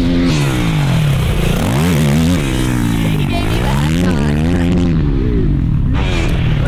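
Youth racing quad's engine being ridden on a motocross track, revving up and falling back several times as the rider works the throttle.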